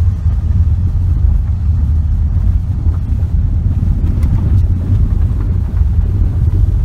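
A car driving on an unpaved gravel road, heard from inside the cabin: a steady low rumble of tyre and road noise.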